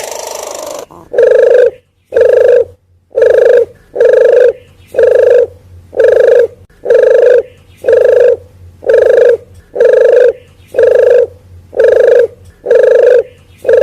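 Puter geni dove lure call: a short hoarse, hissy note, then a steady series of loud, identical coos repeated about once a second.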